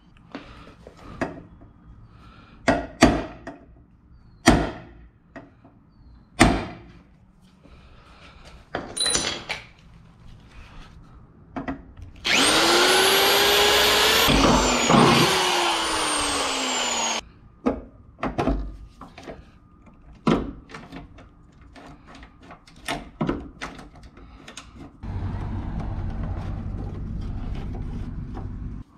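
Electric drill boring a hole into the car's rear panel for about five seconds, its pitch rising as it spins up and dropping as it stops, between scattered sharp knocks and clicks of parts and tools being handled. A lower steady hum near the end.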